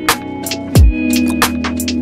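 Electronic background music: sustained chords over a deep kick drum, with quick hi-hat ticks.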